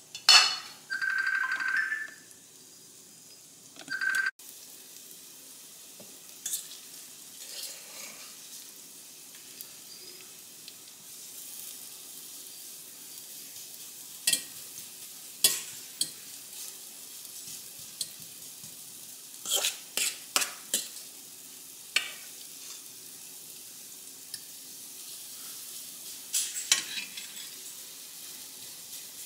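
Salmon patties frying in a nonstick skillet, a steady sizzle, while a metal fork clicks and scrapes against a stainless steel mixing bowl now and then as more of the mixture is scooped out. The first few seconds hold a few brief tones and a sharp clink before the sizzle settles in.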